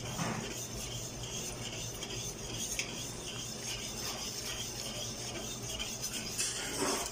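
Wire balloon whisk stirring a thick, milky corn-starch pudding mixture in a large stainless-steel stockpot, its wires scraping and tapping against the pot again and again, over a steady low hum.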